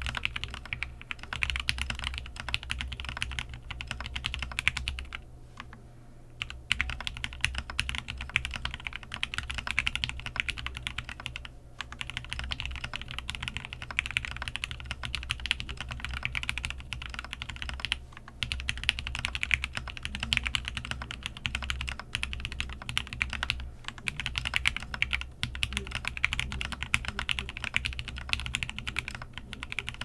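Fast, continuous typing on a custom mechanical keyboard with an aluminium plate, heavily lubed JWK Lavender linear switches and GMK Cafe keycaps: a dense run of keystrokes, with a lull of about a second about five seconds in and a few brief pauses later.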